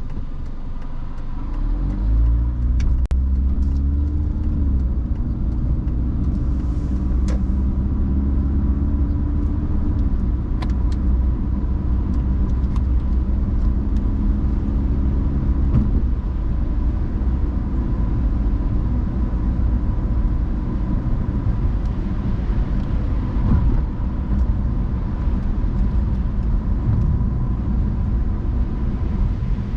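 Car pulling away and accelerating about two seconds in, the engine note rising, then driving on with a steady low road rumble. A few sharp clicks sound early on top of it.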